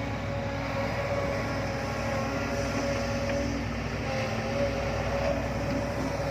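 Heavy diesel machinery working, most likely the excavator scraping a thin layer of soil: a steady engine rumble with a wavering whine above it.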